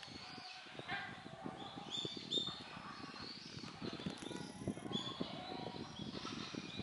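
Small birds chirping: short high chirps about once a second, over a constant low crackling rustle.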